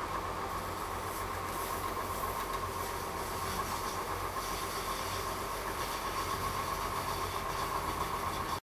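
Light-rail train car running, heard from inside the car: a steady rumble with a constant whine, cut off suddenly at the end.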